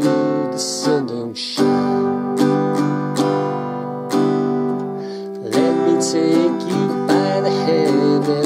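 Yamaha JR1 acoustic guitar strummed and picked, its chords ringing, with a change of chord every second or two.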